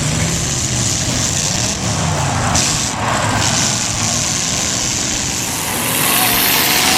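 Demolition derby car engines revving loudly, several at once, their pitch rising and falling over a dense wash of noise.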